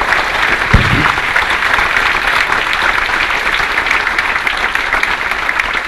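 Audience applauding steadily at the end of a speech, with a single low thump a little under a second in.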